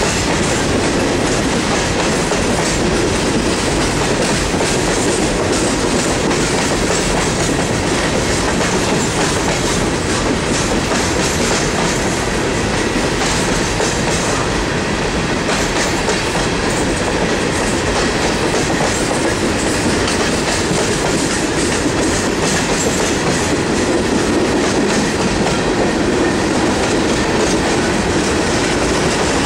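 Empty coal cars of a CSX freight train rolling steadily past, their steel wheels clacking over the rail joints with a continuous rumble.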